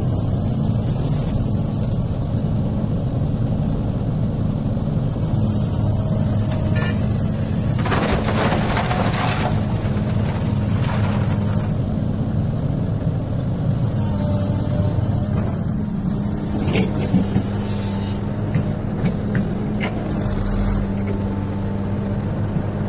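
XCMG excavator's diesel engine running steadily as it works loading material, with a rushing noise for about a second and a half about eight seconds in and a few short knocks later on.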